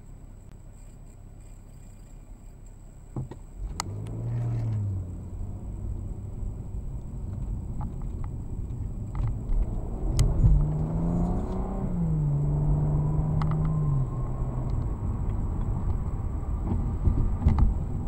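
BMW 335i's N55 turbocharged straight-six, heard from inside the cabin, idling quietly and then pulling away from a stop. About three seconds in the engine note climbs and drops back at an upshift, and it climbs and drops twice more after the middle as the car gets up to highway speed. A few sharp clicks stand out over the engine.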